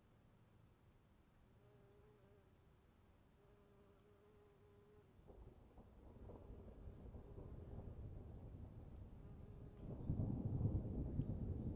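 Crickets chirring in a steady, high, pulsing trill. About halfway through, a low storm rumble sets in and builds, growing much louder near the end.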